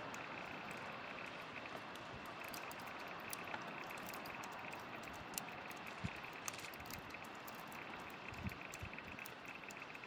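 Wood campfire crackling: a steady hiss with many scattered sharp pops and a few soft low thuds.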